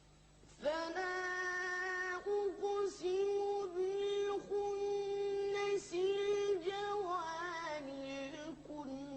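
A child's voice reciting the Quran in a melodic chanted style, holding long, drawn-out notes with slides between them. It comes in just over half a second in, after a near-silent pause, and settles onto a lower note near the end.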